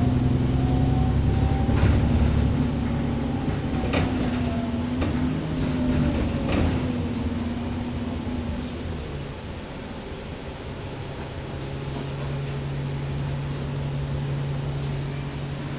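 Alexander Dennis Enviro400 double-decker bus running, heard from inside the passenger cabin. A whining tone rises and then falls away over the engine's steady drone, with scattered knocks and rattles. It quietens about ten seconds in, then a steady low engine hum builds again.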